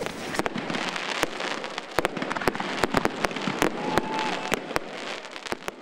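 Fireworks display going off: an irregular string of sharp bangs and cracks over a continuous crackling hiss.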